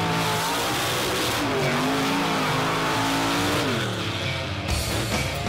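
Lifted mud truck's engine revving, its pitch rising and falling as it spins its tractor tires in loose dirt. Music with a steady beat comes in near the end.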